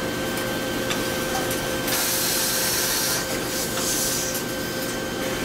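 Automatic shirt ironing machines running with a steady hum and a thin whine; about two seconds in a loud hiss of steam and air blows through a shirt form for about a second, with a shorter hiss near four seconds.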